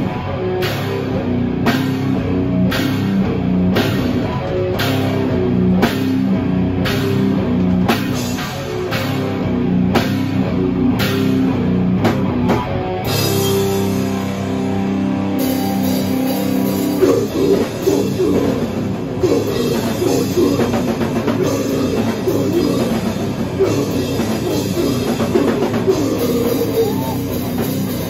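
Live heavy metal band playing: distorted electric guitars, bass and a drum kit. For the first dozen seconds the band pounds out hard accents about three every two seconds, then the drums open into a continuous crash-cymbal wash under faster riffing.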